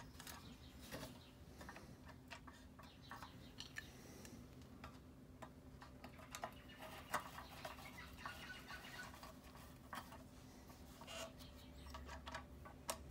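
Faint scattered clicks and light scrapes of small screws being set into a plastic lawnmower carburettor on its fuel tank, with a screwdriver starting to turn them near the end.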